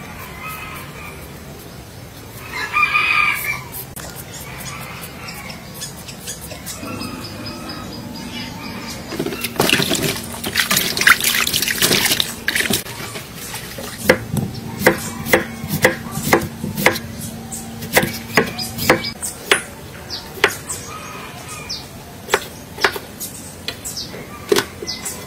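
A rooster crows once about three seconds in. Later, water splashes as peeled potatoes are rubbed and rinsed by hand in a bowl, then a kitchen knife chops potatoes on a wooden cutting board in sharp knocks, about one a second.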